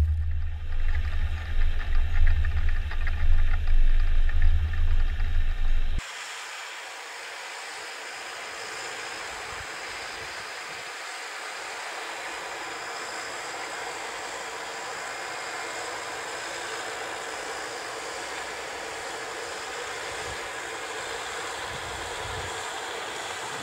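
Jarcrac Dual rubber-tracked mini forwarder driving with a load of pulpwood: its engine runs with a heavy low rumble, then about six seconds in the sound drops suddenly to a quieter, steady running noise with no low rumble as the machine is heard driving from further off.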